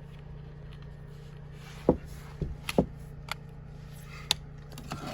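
A few sharp plastic clicks and taps as charging cords are handled and plugged into small rechargeable lights, over a steady low hum.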